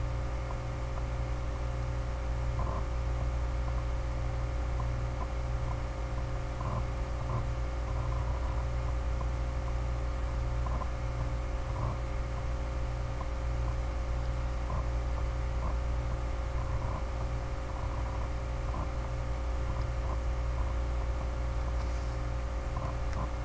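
Steady low electrical hum with hiss, picked up by a computer's microphone while nobody speaks, with faint scattered ticks.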